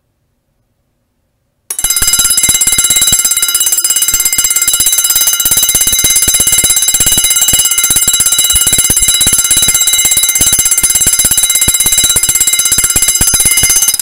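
Vintage Emdeko spring-wound fire alarm bell tripping about two seconds in, as its heat-sensitive disc pops and releases the wound spring, then ringing loudly and continuously with rapid strokes of the clapper.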